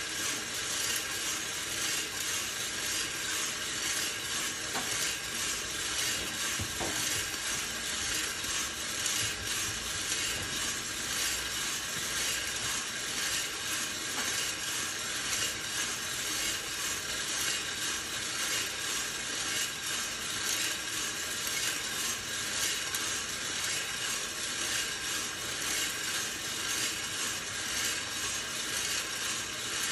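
Hottop drum coffee roaster running steadily early in the roast: the beans, still pale, tumble and rattle with a fine continuous ticking as the agitator turns them in the drum, over the machine's steady running noise.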